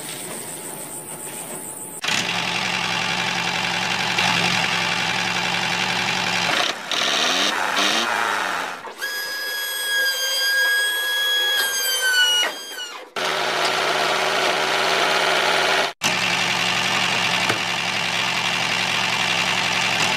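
A small motor running in a few separate cut segments, after a couple of seconds of crickets. Midway a steady high whine takes over and slides down in pitch as it winds down.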